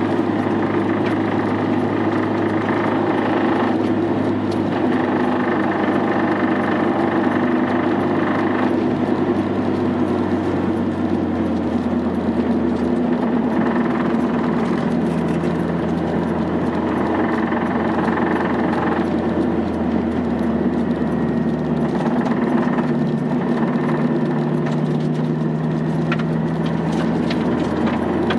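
Honda Integra Type R's four-cylinder engine running steadily at low, nearly constant revs, with only small shifts in pitch a few times.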